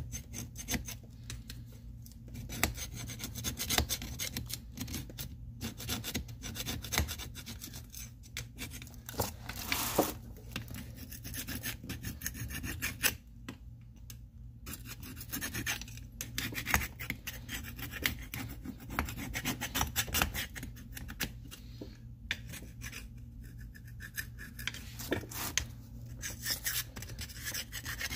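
Rapid rasping, scrubbing strokes of hand cleaning on an old GE bench grinder's housing. The strokes come in spells broken by brief pauses, over a faint steady low hum.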